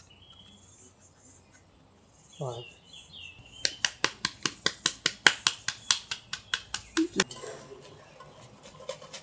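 A hand slaps the back of a halved pomegranate held over a stainless-steel bowl, knocking the seeds out: a fast run of about twenty sharp strikes, roughly six a second, lasting a few seconds. Faint bird chirps come before it.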